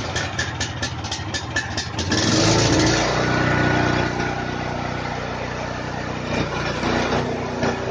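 Champion STT1170E tracked snowblower's petrol engine running, with a regular tapping about five times a second for the first two seconds. About two seconds in, the engine speeds up and then holds a steady, higher speed.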